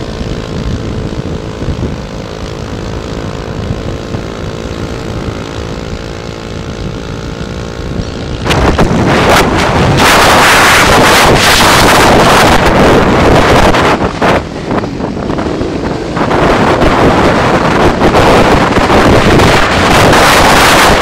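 Motorbike engine running at a steady cruising speed with an even drone, under road noise. About eight seconds in, loud wind buffeting on the microphone drowns it out, easing for a couple of seconds in the middle.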